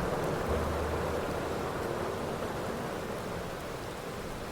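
Steady rain falling, an even hiss that fades slowly.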